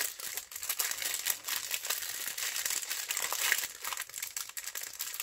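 Thin plastic packaging crinkling and crackling: a clear plastic sleeve of small bagged diamond-painting drills being handled and turned over, a continuous run of quick crackles.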